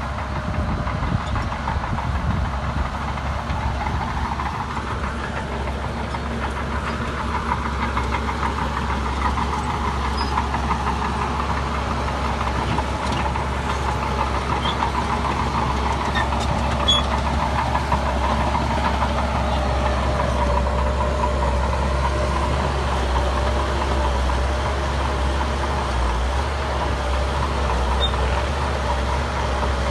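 Heavy diesel engine of earthmoving machinery running steadily under work, a low engine note with a fainter steady whine above it.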